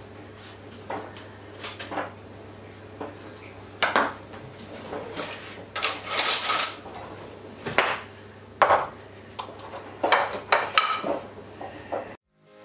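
A metal utensil clinking, knocking and scraping against a saucepan of cooked potatoes as they are mashed and butter is added: scattered sharp knocks a second or so apart, with a longer scrape about six seconds in.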